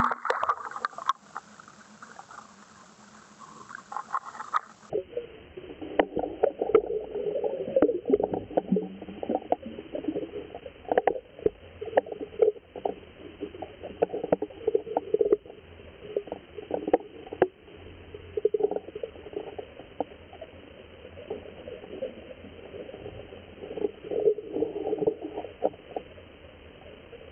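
Muffled underwater sound picked up by an action camera's microphone below the surface: a low rumbling wash of water with irregular sharp clicks and knocks.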